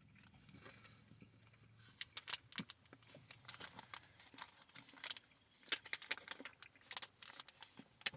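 Plastic fruit-snack pouch crinkling as it is handled: irregular crisp crackles.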